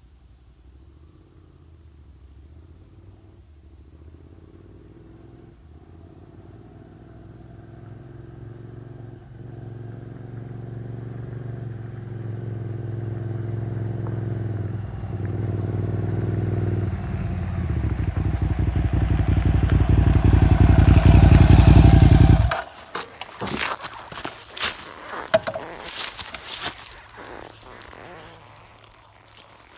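KTM 950 Super Enduro's V-twin engine approaching, growing steadily louder from faint, its revs rising and dropping as it is ridden. About 22 seconds in it cuts off suddenly at its loudest, and scattered clicks and scrapes follow.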